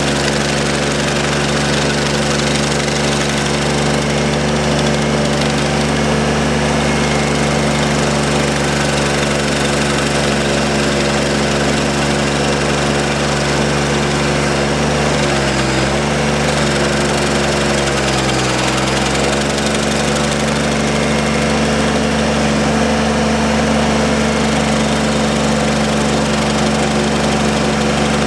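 Ramrod 1150 mini skid steer's engine running steadily at high throttle while it drives a stump grinder, with a noisy grinding haze over the engine tone. The engine pitch sags briefly twice about halfway through, as it is loaded by the grinder cutting into the stump.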